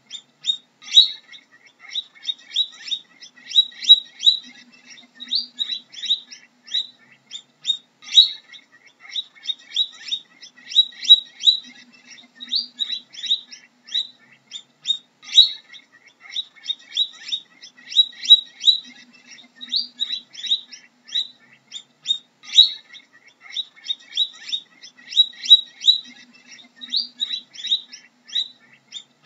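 Guinea pig squeaking: a continuous stream of very short, high-pitched squeaks, several a second, in quick runs.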